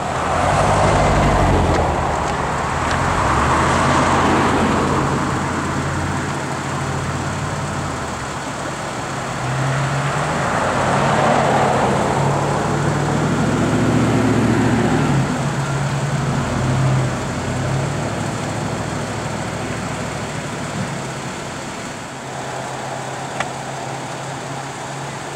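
Motor vehicles passing close by on the road: engine and tyre noise swells and fades twice over a low, steady engine hum.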